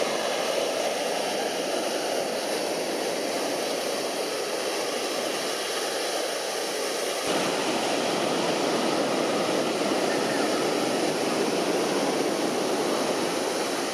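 Steady rushing outdoor ambience of a crowded beach, with no single clear source. It turns suddenly fuller and deeper about seven seconds in.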